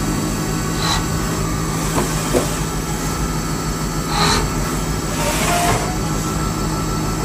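CNC milling machine cutting a red-painted metal casting with a small end mill: a steady metallic cutting noise over the machine's hum, with short high screeches about every one to two seconds.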